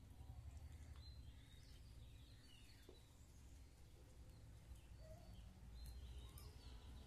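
Near silence: faint outdoor ambience with a low steady rumble and a few faint bird chirps, about 1, 3 and 6 seconds in.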